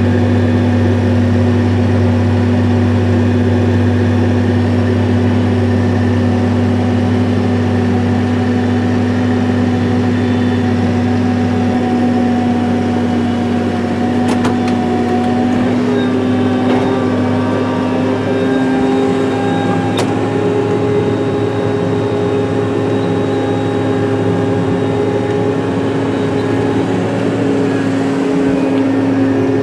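CAT Challenger 55 tractor's diesel engine running steadily, heard from inside the cab, its pitch creeping slightly up over the second half. A couple of sharp clicks come about halfway through and again about two-thirds of the way in.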